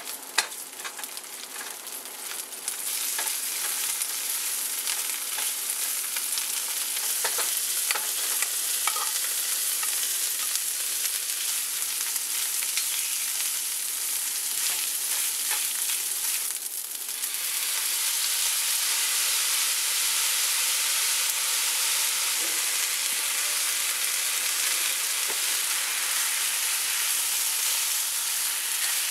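Frozen peas and corn, then cooked rice, sizzling in oil in a nonstick frying pan while a silicone spatula stirs and scrapes through them. The sizzle gets louder about three seconds in, dips briefly just past halfway, then picks up again.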